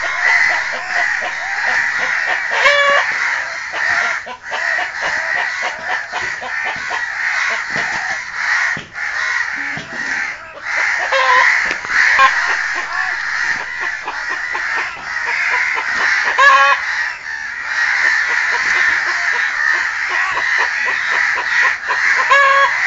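A hen and a crow fighting: hen clucking and squawking and crow cawing, with a few loud, wavering calls standing out a few seconds in, after the midpoint and near the end.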